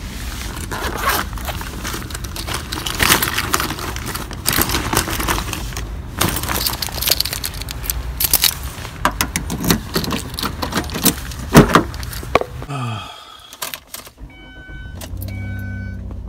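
Car keys jangling and clicking against the door lock as a car is unlocked and opened, with scattered knocks and clatter over steady outdoor background noise. Near the end, inside the car, an electronic warning chime beeps about three times in a steady rhythm over a low hum.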